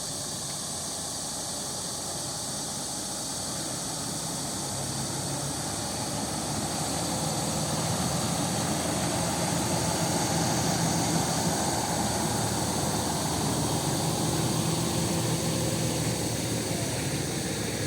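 A heavy engine running steadily with a low hum, growing somewhat louder about halfway through.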